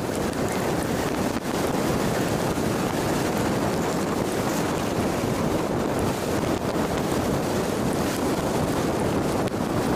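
Steady rush of road and wind noise inside a Jeep driving along a highway.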